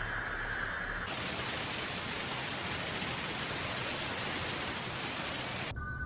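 Simulated tinnitus sounds: an even hiss with a thin, steady high-pitched whine on top, which changes to a different hiss about a second in. Near the end it cuts suddenly to a few steady pure tones.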